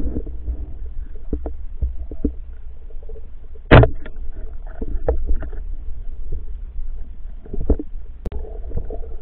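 Underwater sound: a steady low rumble of water with scattered knocks and clicks, and one loud, sharp knock about four seconds in.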